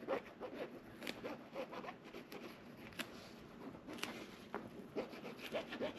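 Faint rustling and scraping of hands working on the couch upholstery during gluing, with a few sharp clicks, about a second in, at three seconds and at four seconds.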